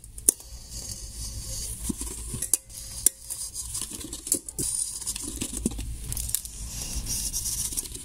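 Sawdust poured off a sheet of card into a rusty metal cooking pot, followed by card scraping and rustling against the pot's rim as the lid is handled. A few sharp metal clicks stand out, the clearest two about three seconds apart.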